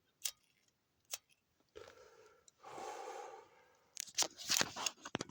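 Scuffing and crunching of movement over gritty sand and dust: a few sharp clicks, a soft scrape in the middle, and a cluster of crackling crunches near the end.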